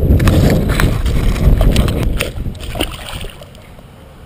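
Loud low rumbling with scattered knocks and clicks from a helmet-mounted GoPro being jostled as the wearer moves and handles a fish. It dies down about three seconds in.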